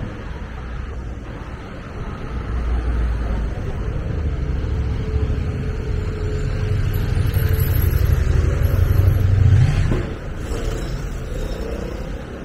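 Street traffic: motorbikes ride up and pass close by, their engine rumble building to its loudest just before ten seconds in and then dropping away sharply.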